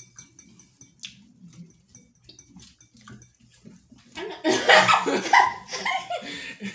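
Faint small eating noises, then about four seconds in a loud outburst of laughter lasting about two seconds.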